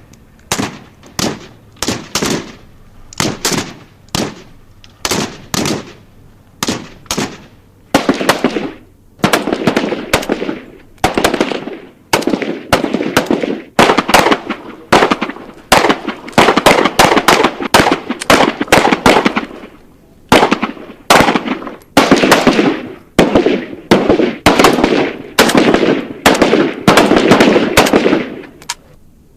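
Gunfire sound effect: single sharp shots roughly once a second at first, then from about a third of the way in, bursts of rapid automatic fire each lasting about a second with brief pauses between them, stopping just before the end.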